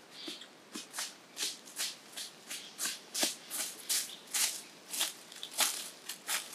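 Footsteps crunching through dry fallen leaves, about two to three steps a second, growing louder as the walker comes closer.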